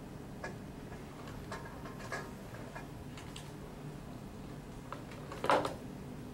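Quiet room tone with a few faint scattered clicks, and one short, louder sound about five and a half seconds in.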